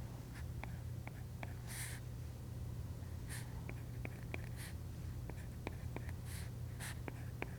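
Stylus tip tapping and sliding on a tablet's glass screen while drawing: a scattering of light clicks over a steady low hum, with a few soft breaths.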